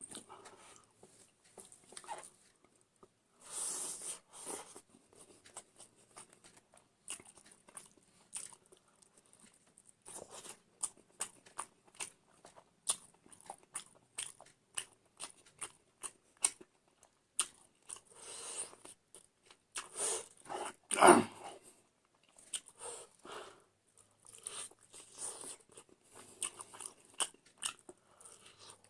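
Close-up eating sounds: chewing, crunching and wet mouth clicks and smacks, coming in quick succession. One louder short mouth sound comes about two-thirds of the way in.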